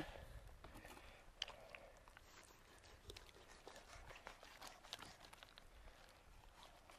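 Near silence with faint, scattered small clicks and scrapes from a knife and hands working on freshly caught lingcod.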